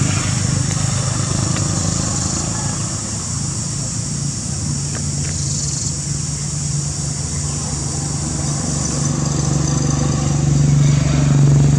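A motor engine running steadily with a low hum that grows louder near the end.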